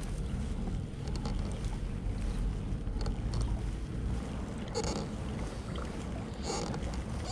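Fishing kayak under way on a lake: steady wind buffeting the camera microphone, mixed with water moving along the hull. Two brief hissing bursts come near the end.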